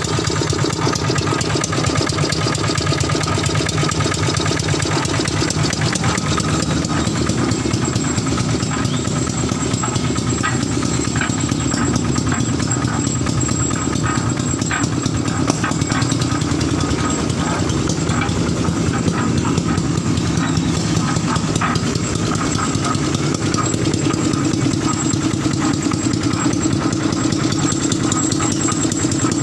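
Yanmar TF55 single-cylinder diesel engine running steadily at a constant speed, driving a concrete mixer.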